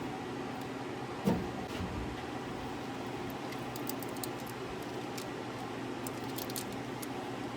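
Small tools and wiring parts being handled: one knock about a second in, then two short runs of light clicking and clinking, over a steady fan-like hum.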